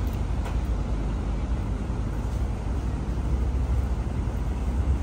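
Steady low rumble of outdoor background noise, with a couple of faint clicks near the start.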